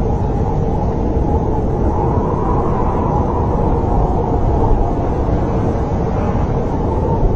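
Snowstorm wind blowing steadily: a deep, even rumble with a faint steady howl above it.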